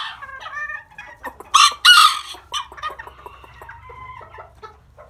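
Old English Game bantam chickens clucking, with a short, loud crow from the rooster about a second and a half in.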